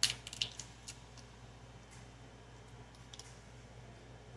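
A quick cluster of sharp clicks and taps in the first second, then two faint clicks about three seconds in, over a low steady hum.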